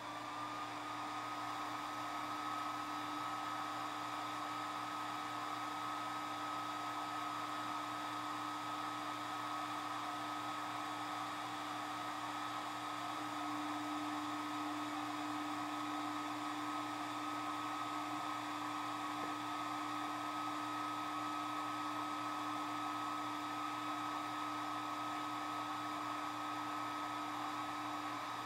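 Algolaser DIY kit 5 W diode laser engraver running while it cuts 2.5 mm plywood: a steady fan whir that rises in pitch as it spins up in the first second, then holds, over a steady low hum.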